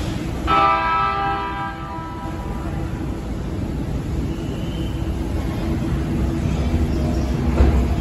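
Horn of a JR East E657 series electric express train, one steady blast of about a second and a half, sounded as the train pulls out. A low rumble of the train starting off continues after it.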